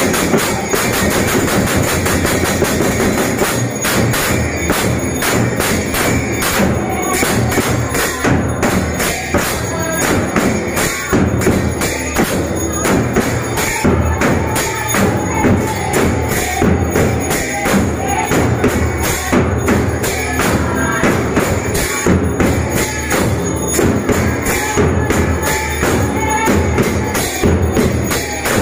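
Devotional group kirtan. A two-headed barrel drum is beaten in a fast rhythm, with brass hand cymbals, hand clapping and women singing. The beat grows denser and sharper about four seconds in.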